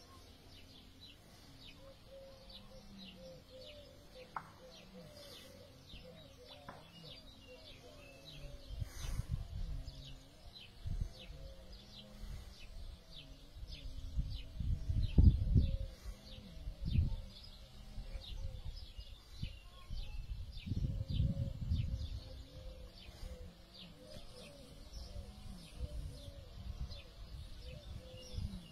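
Birds chirping steadily in quick repeated notes, with low cooing calls underneath. Bursts of wind noise buffet the microphone from about eight seconds in, strongest around the middle.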